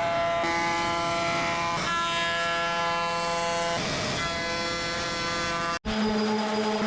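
Electric wood router running at high speed, rounding over the edge of a wooden piece. Its whine shifts in pitch a few times as it cuts, then breaks off abruptly near the end and resumes at a lower, steadier pitch.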